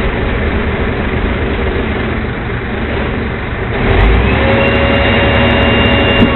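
Rear-loader garbage truck's engine running, then revving up about two-thirds of the way in, with a steady whine setting in as the truck's hydraulics work.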